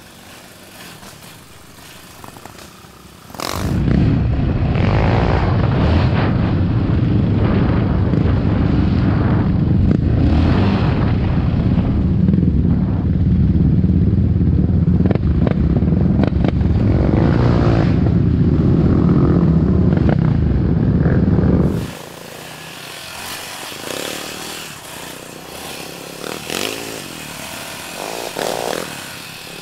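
Yamaha Raptor 700 sport ATV's single-cylinder engine running while riding a dirt trail. A much louder, dense low rumble sets in about four seconds in and drops back about twenty-two seconds in.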